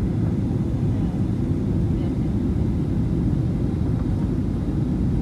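Steady low roar inside the cabin of a Boeing 737-900ER in flight: its CFM56-7B engines and the airflow over the fuselage, heard as an even, unchanging drone.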